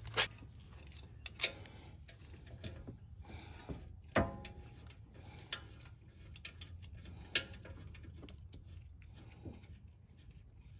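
Scattered sharp metallic clicks and light taps, irregularly spaced, with one louder click about four seconds in, from a brake caliper's guide bolts being threaded in by hand.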